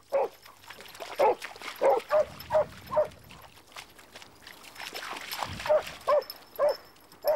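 Dog barking in about ten short, high-pitched yelping barks, irregularly spaced, with a gap in the middle of the run.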